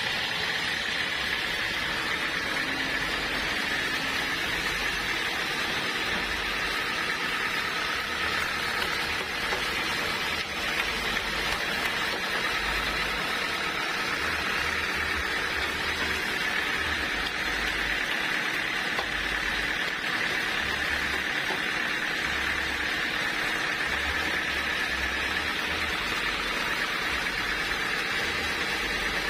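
Sawmill saw cutting a hard acacia log, a steady unbroken whining hiss that holds at one level throughout.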